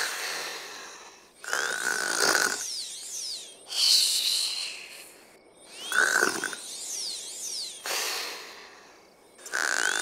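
Cartoon snoring from a sleeping unicorn character: a rasping snore alternates with a thinner, higher exhale that has a slight whistle, about every two seconds.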